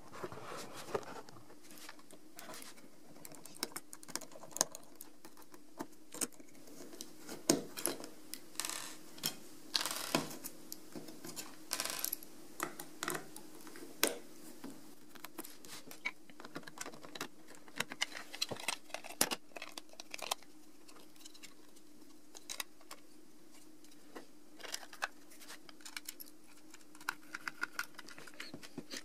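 Irregular small clicks, taps and scrapes of a black plastic Raspberry Pi case being handled, its lid fitted and small screws driven in with a precision screwdriver.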